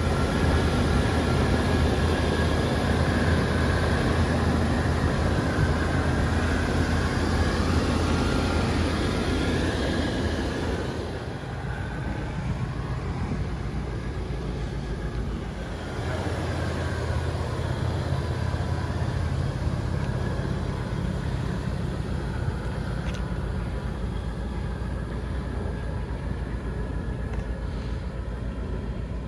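Rolls-Royce Silver Shadow's 6.75-litre V8 idling after a cold start, a steady low hum. It is louder for about the first eleven seconds, then settles to a slightly quieter, even level.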